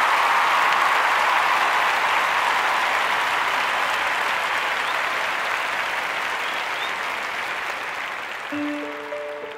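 Audience applauding, slowly dying away. Near the end, the instrumental accompaniment begins with held notes.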